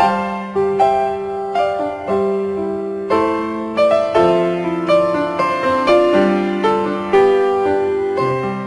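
Background piano music: a gentle melody of single notes struck about twice a second, each fading before the next.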